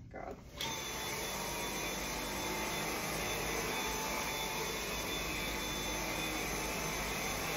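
Dyson V8 cordless stick vacuum switching on about half a second in, then running steadily: a rush of air with a steady high whine from the motor.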